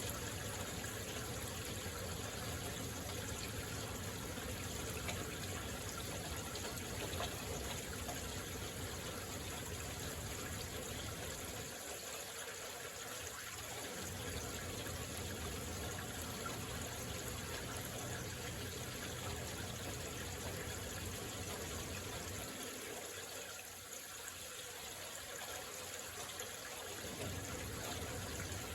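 Heavy rain falling steadily, an even hiss of water, with a low rumble underneath that drops away twice.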